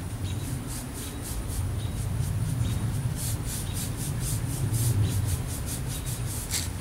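Paintbrush bristles stroking chalk paint onto a wooden chair back: a rapid series of short brush strokes, several a second, over a steady low rumble.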